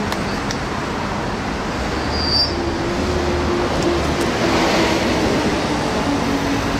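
Road traffic noise, with a large vehicle passing by: its low engine hum rises in the middle and fades toward the end.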